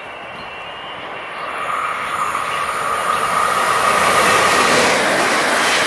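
Electric multiple unit, a DB Class 1440, approaching on the track: the rolling noise of its wheels on the rails grows steadily louder throughout, with a steady singing tone from about a second and a half in until past the middle.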